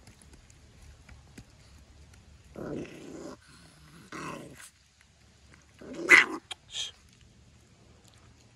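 A dog growling in four short bursts, the loudest about six seconds in.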